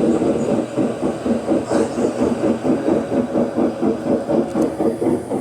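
Brastemp BWL11 washing machine running with a rapid, even rhythmic clatter, several beats a second: the noise of a broken gearbox (câmbio).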